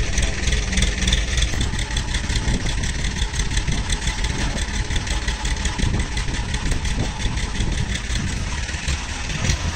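A heavy engine running steadily at a low, even pitch, with no speech over it.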